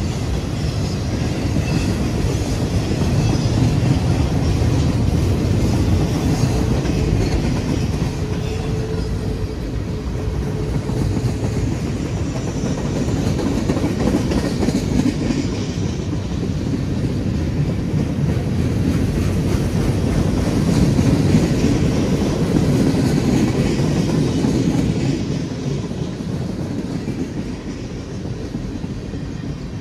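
Freight train boxcars and tank cars rolling past at speed, a steady rumble and clatter of steel wheels on the rails, easing slightly near the end.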